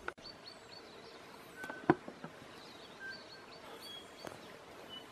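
Birds calling in native bush: scattered short chirps and whistles at several pitches over a steady background hiss, with a single sharp click about two seconds in.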